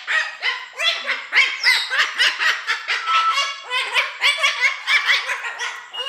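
Pet parrot calling excitedly in a rapid string of short, high calls, several a second, with no pause.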